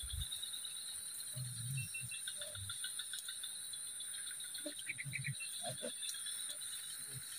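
A steady chorus of insects, a continuous high-pitched buzz at two pitches that holds unchanged throughout, with a few faint low sounds now and then.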